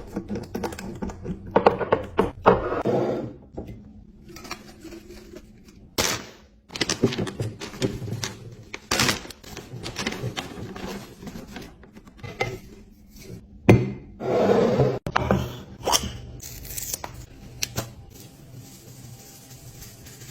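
Kitchen containers and packages being handled: an irregular series of thunks, knocks and scrapes as items are set down, opened and moved, with a faint steady low hum underneath.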